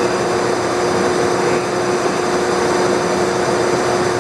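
Monarch Series 90 heavy-duty lathe running under power at its slow 31 RPM spindle speed: its 40 HP main motor and headstock gearing give a steady machine hum with a constant mid-pitched whine.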